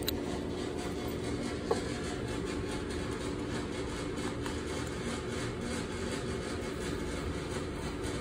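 Steady mechanical hum of a running machine, with a few fixed tones over a low rumble, and two light clicks, one at the start and one just under two seconds in.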